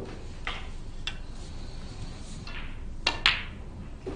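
Snooker balls and cue making sharp clicks. The loudest is a pair of clicks about three seconds in, with fainter knocks earlier.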